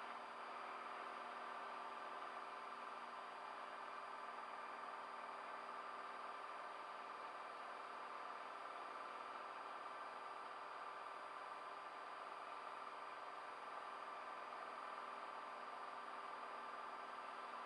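Cessna Skylane's piston engine and propeller at full climb power, heard as a faint, steady drone with hiss.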